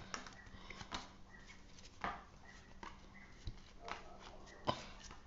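A few faint, scattered taps and knocks, the clearest about two seconds in and near the end, over a low steady hum.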